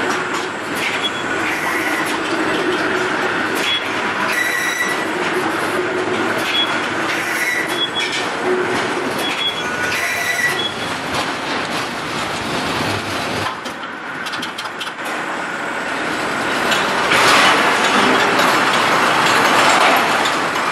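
Factory rail transfer cart rolling on steel floor rails with a steady rumble and short, repeated high squeals from its wheels. It grows louder near the end.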